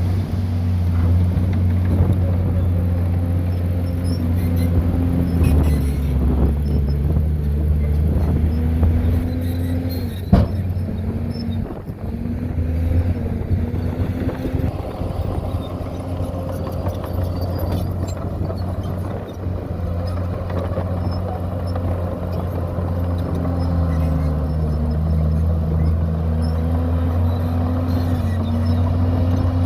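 Diesel engine of a Komatsu D51PX bulldozer running steadily, its pitch dipping and recovering twice as it works. A single sharp knock is heard about ten seconds in.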